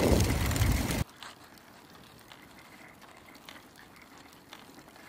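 A loud low rumble, like wind on the microphone, cuts off suddenly about a second in. After it comes the faint rolling and scattered clicking of a handcycle's chain drive as it rides along a paved path.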